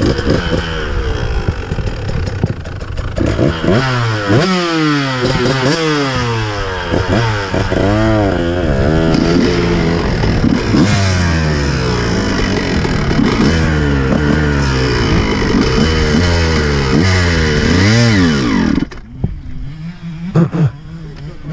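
Several dirt bike engines revving over one another, their pitch repeatedly rising and falling. About a second before the end the loud revving drops off, leaving quieter engine sound with a couple of short blips.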